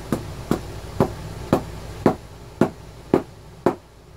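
Light, even tapping on the plastic case of a Quantum Battery 1 Plus jump-starter pack, about two taps a second, eight or nine in all, to settle a replacement battery cell down into the case.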